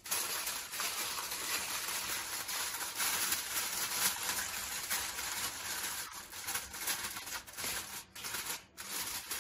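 Aluminium foil crinkling and crackling as it is pressed and crimped by hand over the rim of a round metal pan, a dense continuous rustle with a couple of short pauses near the end.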